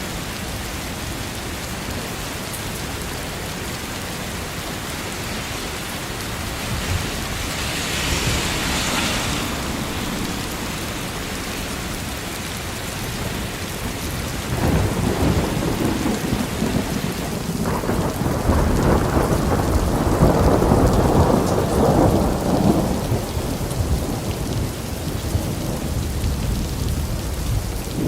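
Steady rain, with a rumble of thunder that comes in about halfway through and rolls on for several seconds, loudest around two-thirds of the way in before fading.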